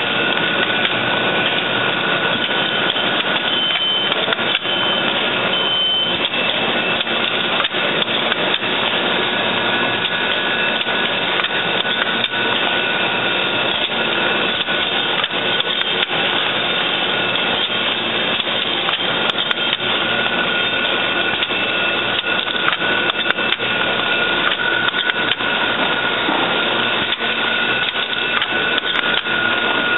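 Automatic hypodermic needle assembly machine running: a steady mechanical clatter of many rapid clicks, with a thin high whine held over it.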